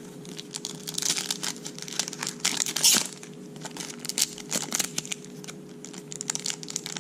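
Foil wrapper of a trading card pack crinkling and rustling in the hands as it is torn open, in irregular bursts with the loudest about three seconds in. A faint steady hum sits underneath.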